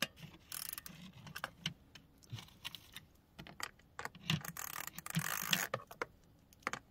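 Hand ratchet wrench clicking in irregular runs as it is worked back and forth on a bolt. The pawl ratchets without turning the bolt, because the ratchet is set to the wrong direction for tightening.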